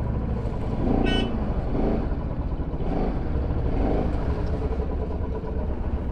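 Bajaj Pulsar RS200 single-cylinder engine idling with a steady low rumble as the bike is moved into parking, with a short high beep about a second in.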